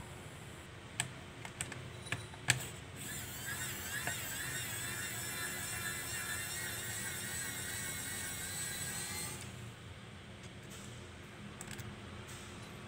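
Small electric screwdriver whirring steadily for about six seconds, starting about three seconds in, as it backs out the screws holding a laptop hard drive in its bay, with a few light clicks before it starts.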